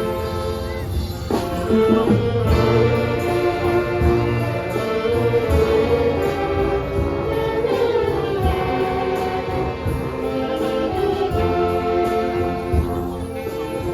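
Filipino brass band playing a Manila sound pop medley: a sustained brass melody over a steady beat of bass and drums.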